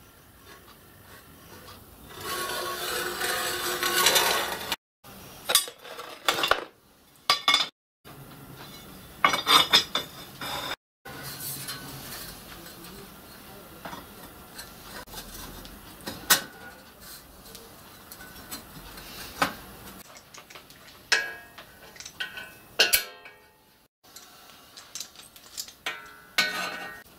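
Workshop handling of metal: steel strip and angle clinking and clattering as they are set and clamped in a cast-iron bench vise, with scattered sharp metallic knocks and a few seconds of continuous scraping near the start.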